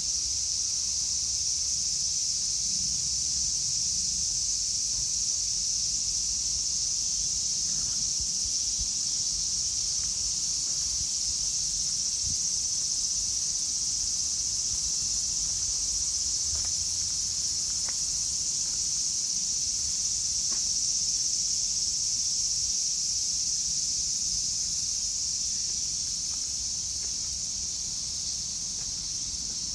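A loud, steady, high-pitched chorus of insects droning without a break, dropping a little in level near the end, over a faint low rumble.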